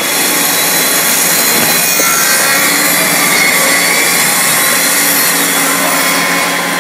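Kreg benchtop pocket-hole machine's electric motor running as its bit bores a pocket hole into a clamped wooden board, a steady cutting noise.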